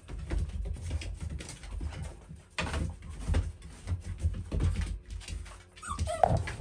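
Labrador puppies' paws scrabbling and tapping on a hard floor, with irregular soft knocks and scuffles, and a short cry about six seconds in.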